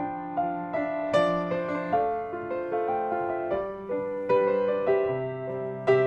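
Piano music: notes struck one after another and left to ring, with a melody moving over sustained lower notes.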